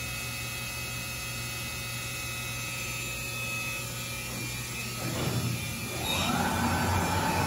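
Breton NC300K26 CNC stone contouring machine humming steadily. Just after five seconds there is a brief clatter, and about six seconds in the router spindle spins up with a rising whine that levels off into a steady, louder whine.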